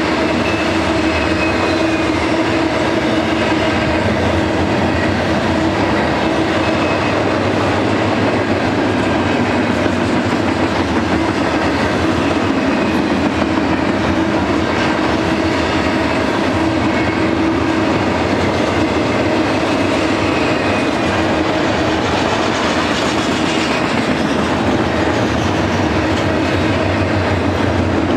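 Double-stack intermodal freight cars rolling past: a steady rumble and clatter of steel wheels on the rails, with a faint steady ringing tone over it.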